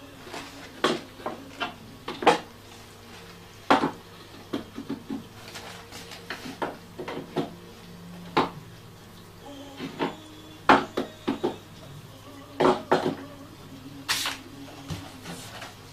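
Metal hand tools clinking and knocking as they are taken from a tool rack and handled: a run of irregular sharp clicks and clacks.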